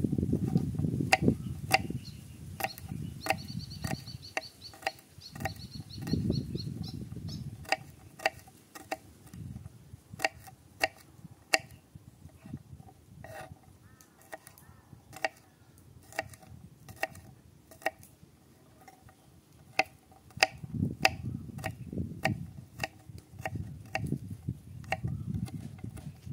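Kitchen knife chopping garlic cloves on a wooden cutting board: sharp, irregular knocks of the blade against the wood, about one or two a second. A bird trills briefly about three seconds in, and low rumbling noise comes and goes, strongest at the start and near the end.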